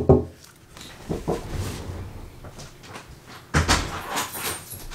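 Door sounds: a sharp knock-like bang at the start, a few thuds, then a louder bang about three and a half seconds in, as a front door is answered to a caller.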